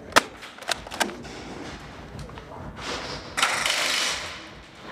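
Airsoft gunfire in an indoor game: several sharp clicks and snaps within the first second, the loudest right at the start. Near the end a loud rushing hiss lasts most of a second.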